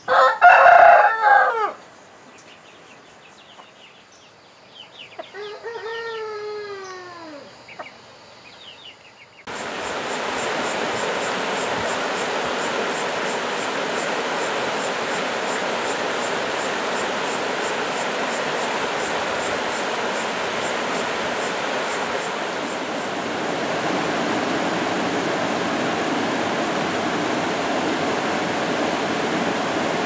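A rooster crows loudly in the first two seconds, and a fainter crow of several falling notes follows a few seconds later. About nine and a half seconds in, the sound cuts abruptly to the steady rush of a rocky stream spilling over boulders in small cascades.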